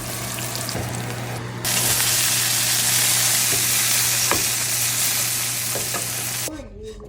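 Food sizzling in an oiled frying pan, a steady hiss with a few light clicks of a utensil against the pan. It gets louder about two seconds in and cuts off suddenly near the end.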